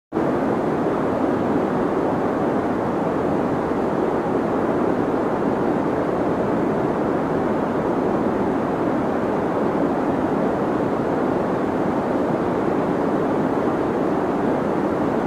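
Deep white noise for sleep: a steady, unchanging rushing hiss weighted toward the low and middle range, with little treble.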